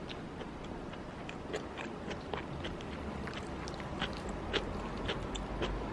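Close-up eating sounds: chewing of kimchi fried rice, with many small irregular clicks from the mouth and from a metal spoon on the ceramic bowl.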